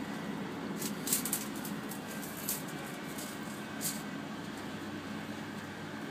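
Steady low hum inside a moving cable car gondola, with a few short, sharp high-pitched clicks or rustles in the first four seconds.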